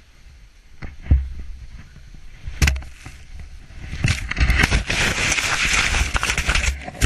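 Avalanche snow rushing over and buffeting a skier's camera microphone. A couple of heavy knocks come first, then a loud churning hiss over low rumble from about four seconds in, which drops away sharply at the end.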